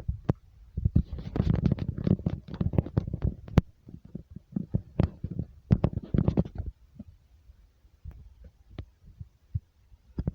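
Objects rattling and knocking under earthquake shaking: dense, irregular clatters over a low rumble, in two heavy spells, then only scattered knocks near the end.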